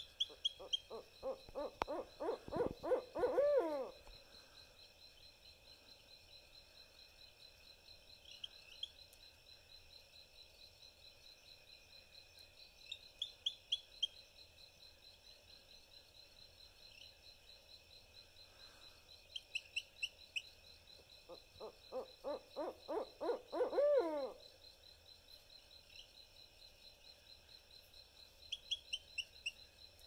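Barred owl giving two rapid runs of hoots, each building in loudness and ending in a drawn-out falling note, one near the start and one about two-thirds through. A steady high insect trill goes on underneath.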